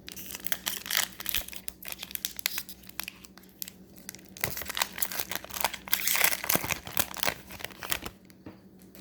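A Magic: The Gathering booster pack's foil wrapper being torn open and crinkled by hand, with irregular crackling rustles that are busiest in the second half.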